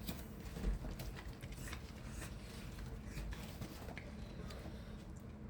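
Scattered small clicks and taps of food being handled and eaten, over a low background rumble, with one brief low bump about three-quarters of a second in.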